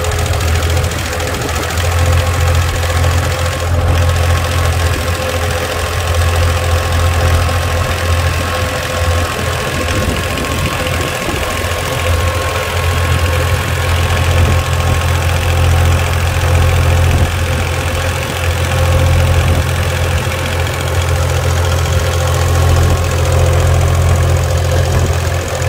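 Small compact tractor engine idling steadily, running strong now that its dirt-clogged air filter has been blown clean with compressed air.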